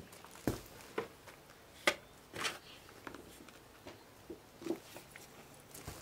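Spade digging in garden soil: irregular scrapes and thuds as the blade is driven in and earth is lifted out, the loudest strokes in the first half.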